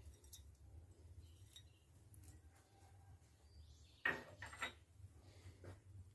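Quiet handling of ceramic dishes. About four seconds in a dish clinks sharply, followed by a few lighter knocks.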